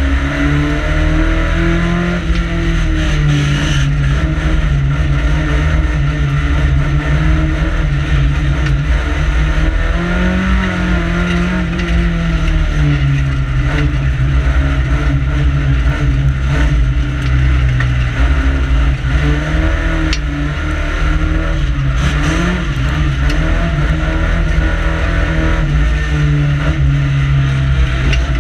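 Banger racing car's engine heard from inside its stripped-out cabin, running at low to moderate revs, its pitch rising and falling several times as the driver eases on and off the throttle.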